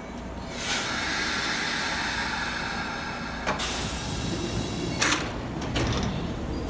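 Kintetsu trains at a station platform: a long hiss about a second in that cuts off sharply, then a few sharp clanks, over the low rumble of the trains.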